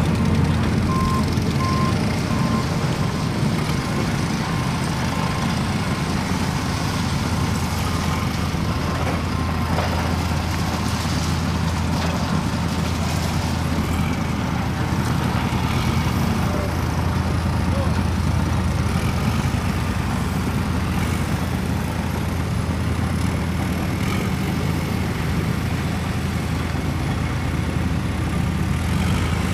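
Diesel engine of a crane truck running steadily while its truck-mounted Palfinger knuckle-boom crane lowers a load. A high beep repeats for the first few seconds.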